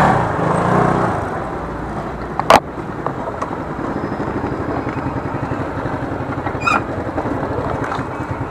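Motorcycle engine running at low speed, with a steady pulsing putter. A single sharp knock comes about two and a half seconds in.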